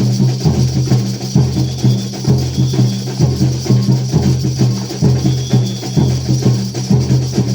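A band playing an instrumental passage at rehearsal: a steady rhythm of drums and jingling percussion over sustained bass notes that change every second or so.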